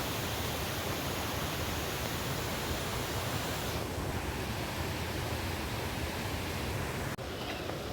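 Steady rushing of a waterfall, a continuous hiss of falling water that loses some of its higher range about four seconds in and briefly cuts out near the end.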